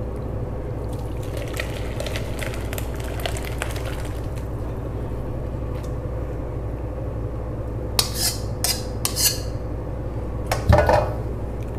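A metal utensil scraping and clinking against metal bowls as food is stirred and scooped from one bowl into another. Light taps come first, then a few louder clatters, and the loudest knock of a bowl comes near the end. A steady low hum runs underneath.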